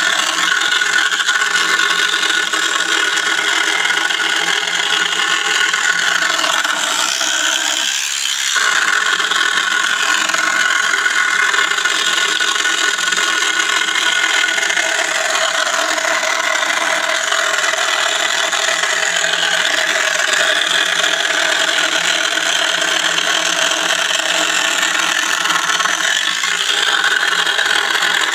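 Toy car's small electric motor and plastic gear train running steadily with an even whine, its wheels spinning, with a brief dip about eight seconds in.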